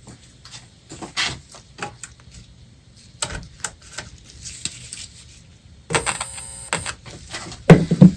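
Speaker of a 1936 Zenith 6S27 tube radio crackling and popping irregularly as the set first comes alive on reduced voltage, with a buzzing burst for about a second near six seconds in and a louder pop near the end.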